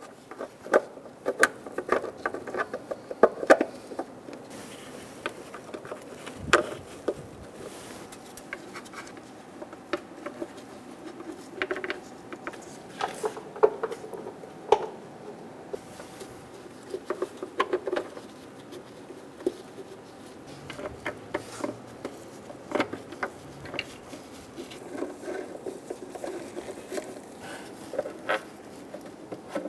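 Light clicks and taps at irregular intervals as small bolts are fitted and threaded into the plastic timing cover of a Subaru 2.5-litre engine.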